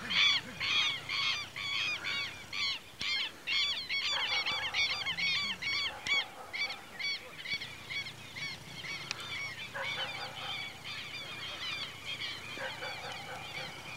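A flock of birds honking: short calls that rise and fall in pitch, several a second and overlapping, growing fainter and sparser in the second half.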